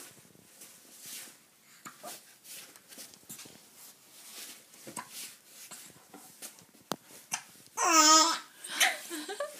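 Baby babbling and gurgling softly in short bits, then a loud drawn-out coo about eight seconds in, followed by a shorter one.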